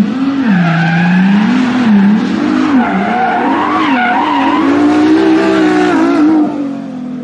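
Car engine revving up and down with tyres squealing and skidding in a burnout. After about six and a half seconds the revving dies down to a quieter, steady engine note.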